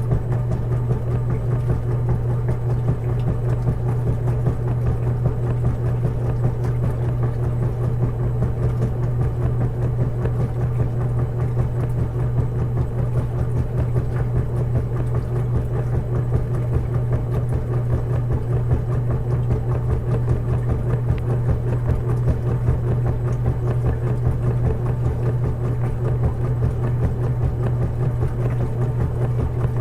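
Washing machine running with a steady, unbroken low hum.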